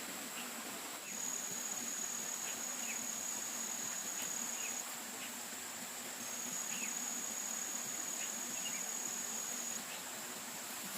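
Insects calling with high-pitched, steady trills: one continuous, and a second slightly lower one that comes in twice for a few seconds each, over faint short bird chirps.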